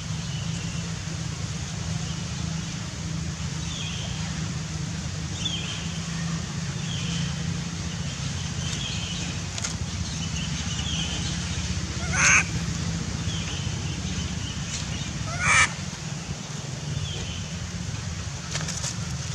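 Young long-tailed macaques calling: faint short high chirps every second or two, and two short, loud cries, about twelve and fifteen and a half seconds in, over a steady low outdoor rumble.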